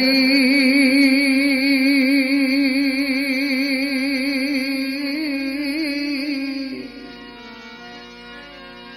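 A singer holds one long note with a wavering vibrato in a Gujarati bhajan, over a steady harmonium drone; the voice stops about seven seconds in and the harmonium carries on alone, softer.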